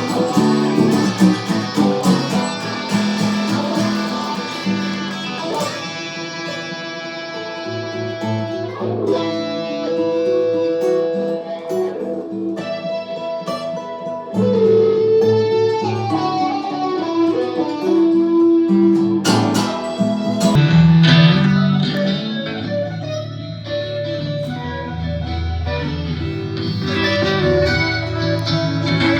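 Guitar playing an instrumental passage, plucked notes and chords ringing out and changing every second or two.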